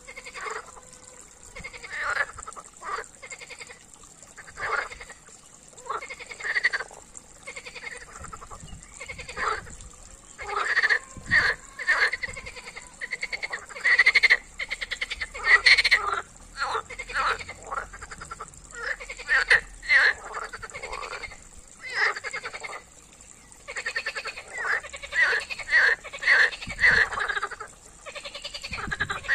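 A chorus of European green frogs (water frogs) croaking, many short calls overlapping in repeated bursts that grow busier and louder around the middle and again near the end.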